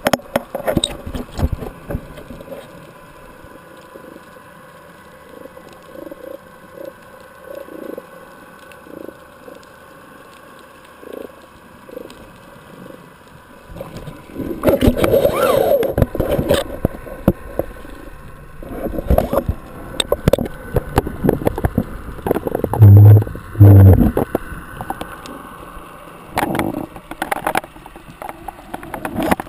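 Water sloshing and gurgling around an underwater camera housing held just below the sea surface, louder and busier in the middle, with two heavy thumps less than a second apart about two thirds of the way through.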